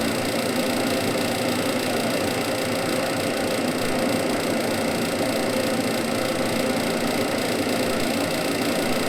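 Maxant honey extractor running steadily, its 1/3-horsepower General Electric electric motor driving the spinning basket.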